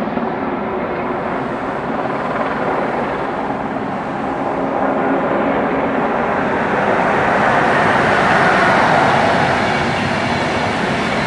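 Eurocopter AS350 Écureuil helicopter hovering low and air-taxiing past: steady turbine and rotor noise that grows louder about halfway through and is loudest a couple of seconds before the end.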